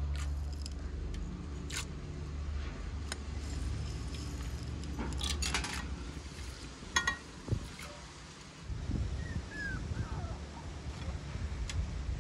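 Metal spoon clinking against an enamel pot as whole spices are tipped and stirred into water, with light splashes. There are single clicks about two and three seconds in, a quick cluster of clinks around five to six seconds, and one ringing clink about seven seconds in.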